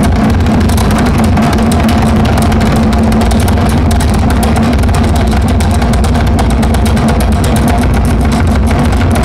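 The Noise Box 10 putting out a steady, loud, engine-like drone, with a constant hum and fine crackle that hold unchanged throughout.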